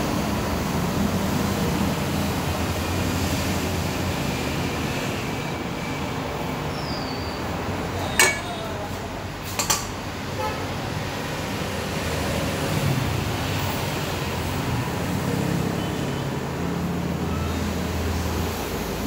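Steady low background rumble, broken near the middle by two sharp metallic clinks about a second and a half apart, from steel utensils knocking against steel cookware.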